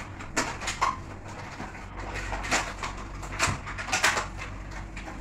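Plastic wrapping and clear plastic lids of takeaway food trays rustling and crackling as they are unwrapped and opened by hand, in a run of short, uneven crinkles.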